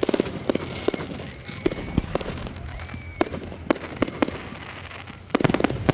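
Aerial fireworks display: irregular sharp bangs of bursting shells, some as quick double or triple reports, ending in a rapid cluster of bangs near the end.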